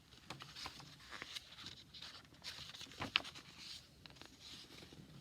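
Soft paper rustling and small clicks of a picture book being handled, with one sharper click about three seconds in.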